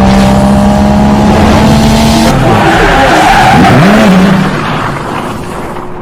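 Car drifting: the engine is held at steady high revs under a loud tyre screech, then the revs dip and climb again, and the sound fades away over the last second or so.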